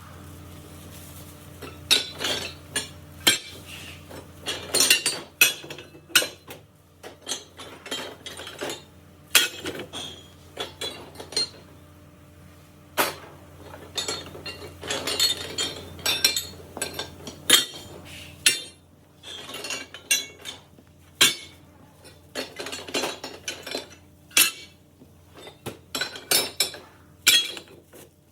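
Metal parts and tools being handled on a workbench, clinking and knocking together in irregular clusters of sharp strikes.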